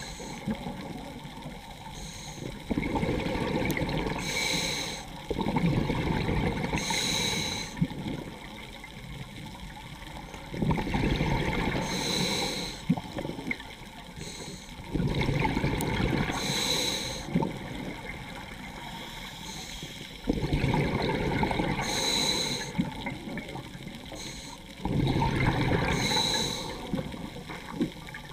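A scuba diver breathing through a regulator, slowly and steadily: about six breaths, each with a two- to three-second rush of exhaled bubbles and a hiss from the regulator.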